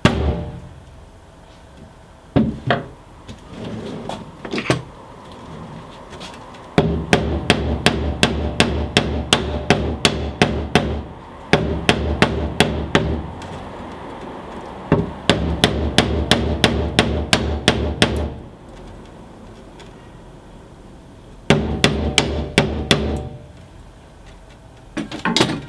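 Hammer blows in quick, even runs of strikes, four runs separated by pauses, with a few single knocks before them.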